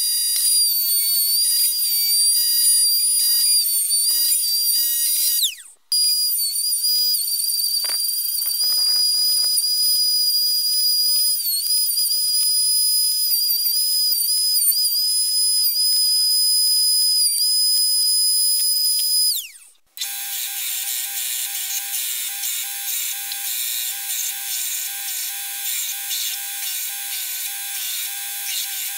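Router in a router table running with a high whine, its pitch dipping slightly as the bit cuts the wooden handle; it winds down and stops after about five seconds, runs again, and winds down again. Then a belt grinder runs with a lower hum while wood is sanded on the belt, a rough rubbing hiss.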